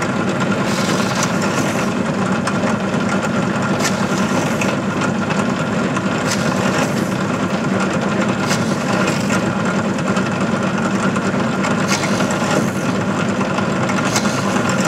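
Bench pillar drill running steadily as a small bit is plunged through a stripboard jig into rigid polystyrene sheet, with a few brief clicks along the way.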